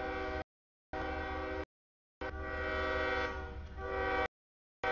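Air horn of CSX locomotive 769 blowing for a grade crossing: a short blast, then a long blast of about two seconds that dips briefly in the middle, then another blast starting near the end. Each blast is a chord of several steady tones and cuts off sharply.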